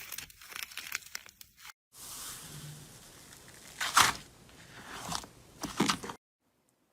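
Slime being squeezed and pressed by hand, giving dense crackling and crunching, with two louder crunches about four and six seconds in. The sound breaks off briefly under two seconds in and stops altogether near the end.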